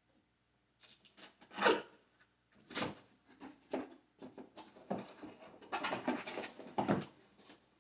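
Cardboard shipping box and packing material being handled as a guitar is unpacked: irregular rustling, scraping and knocks, the loudest a little under 2 seconds in and again about 6 seconds in.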